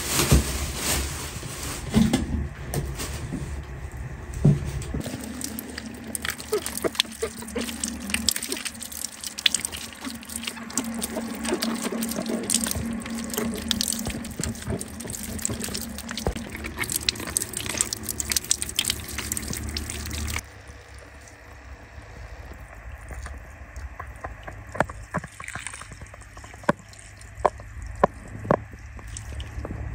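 Spring water pouring from a spout and splashing as vegetables are rinsed under it by hand, with scattered sharp knocks and clicks.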